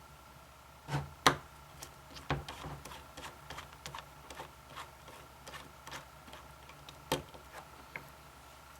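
Scattered small clicks and ticks of a screwdriver working screws out of an airsoft V3 gearbox shell, with the screws and tool knocking lightly now and then.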